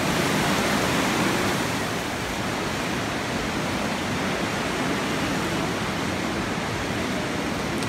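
Steady rushing of a fast, shallow mountain river flowing over rocks through a narrow canyon.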